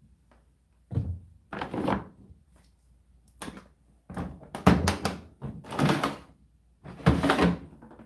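A tumble dryer's door being handled and pushed shut: several knocks and thunks, the loudest about seven seconds in.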